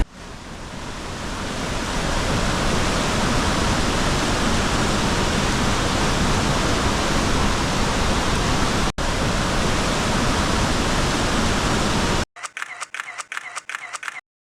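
Waterfall rushing steadily, an even, full-range noise that drops out for an instant about nine seconds in and cuts off suddenly about twelve seconds in. A quick run of short pitched pulses follows near the end.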